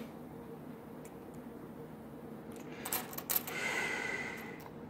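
Pennies being handled on a wooden table: a few sharp clicks of coins knocking together about two and a half seconds in, then a coin rings with a clear tone for about a second.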